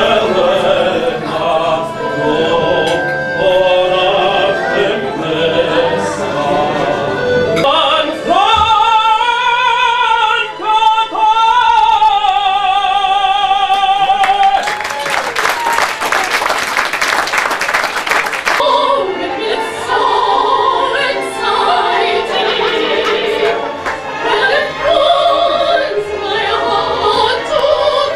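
Man singing opera-style into a hand microphone over backing music, holding one long note with strong vibrato from about eight seconds in. A loud burst of noise follows for about four seconds, then the singing and music carry on.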